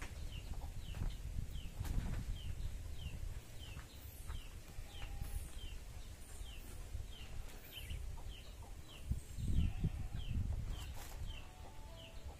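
A bird peeping over and over, short falling notes about twice a second. Under it are a low rumble and a few thumps, loudest about three-quarters of the way in, as the woven crate and a plastic jerrycan are handled.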